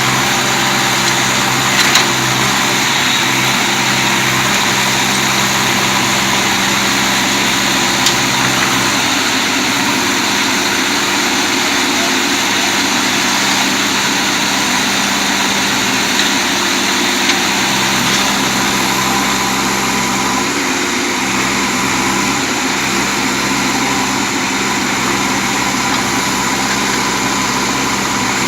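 A machine's motor running steadily with an even hum, with a few faint clicks.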